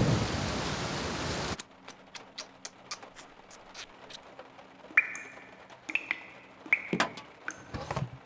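Cartoon sound effects: a steady rushing hiss that cuts off abruptly about a second and a half in, then scattered light clicks and several short high squeaks.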